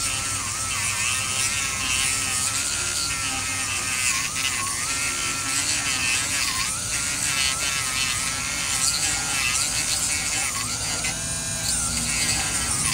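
Dremel rotary tool cutting into the end cap of a broomstick antenna, its high motor whine dipping in pitch again and again under load and then recovering.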